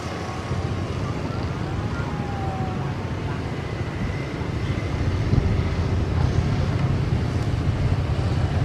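Jet engines of an Airbus A320-family airliner on the runway make a steady low rumble that grows gradually louder. Road traffic passing close by is mixed in with it.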